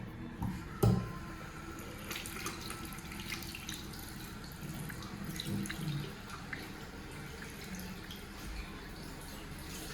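Water running from a tap into a sink, with scattered small drips and ticks and one sharper knock about a second in.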